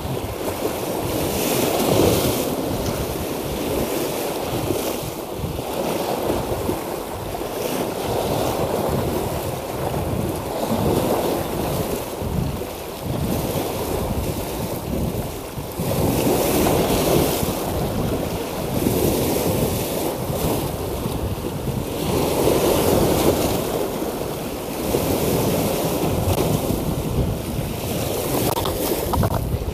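Sea waves washing against rocks, surging and easing every few seconds, with wind buffeting the microphone.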